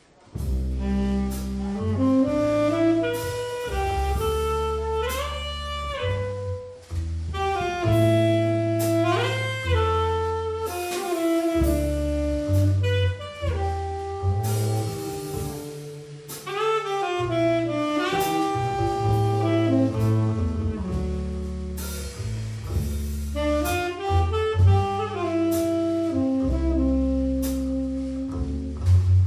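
Jazz trio playing: tenor saxophone carrying a melody with slides between notes, over walking upright double bass and a drum kit with cymbals. The music comes in suddenly at the start.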